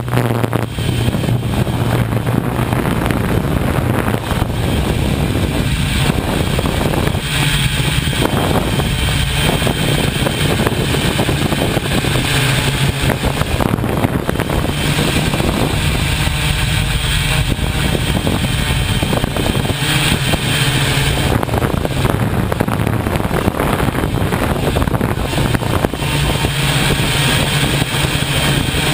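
Loud, steady vehicle noise: a continuous low engine hum under a rushing noise, with no clear start or stop.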